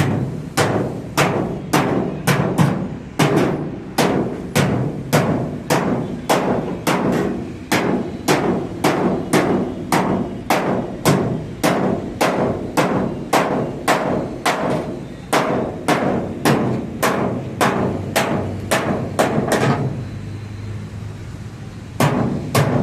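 Background music with a steady percussive beat of about two hits a second. The beat drops out for a couple of seconds near the end, leaving a low hum, then comes back.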